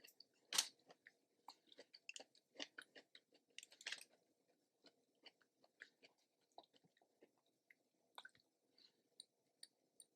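Faint close-up chewing of a mouthful of food, with scattered small mouth clicks and smacks; the sharpest click comes about half a second in.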